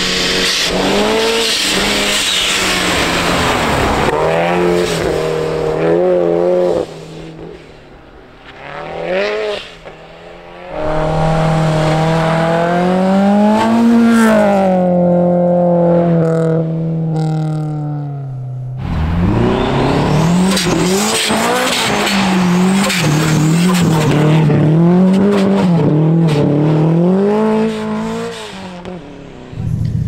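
Subaru rally cars being driven hard on a snowy track. The engines rev up and down constantly as the throttle is worked through slides and gear changes, with a quieter spell about a third of the way through and one engine giving way abruptly to another about two-thirds through.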